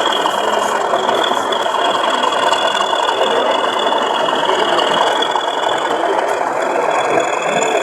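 OO gauge model train running: a steady mechanical whirring and rattling with a high, even whine.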